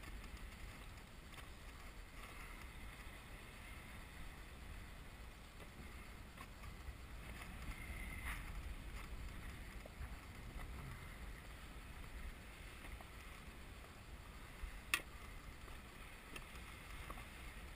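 Low, steady rumble of water and wind around an inflatable boat, with a few faint clicks and one sharp click about fifteen seconds in.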